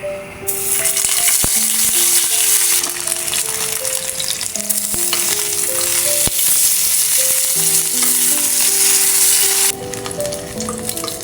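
Food frying with a loud, steady sizzle that starts about half a second in and cuts off sharply near the end. A gentle music melody plays underneath.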